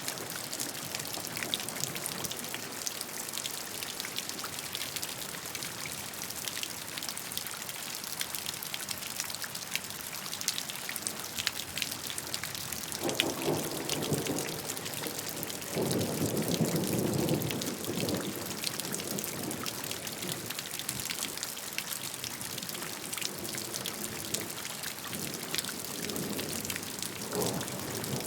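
Steady rain falling, with dense patter and the ticks of individual drops. Low rumbles swell up about halfway through, the longest lasting about two seconds, with a softer one near the end.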